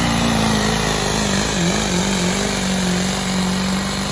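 Diesel pickup truck pulling a weight-transfer sled at full throttle, its engine running loud and steady at high revs under heavy load. The pitch wavers briefly about halfway through, then holds.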